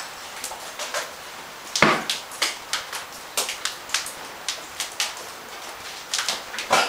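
Footsteps crunching over debris on a wooden floor: irregular sharp cracks and knocks, the loudest about two seconds in and again near the end.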